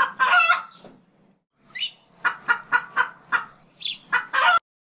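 Chicken squawking: a loud screech, then a quick run of about five clucks, and a final loud squawk that cuts off suddenly.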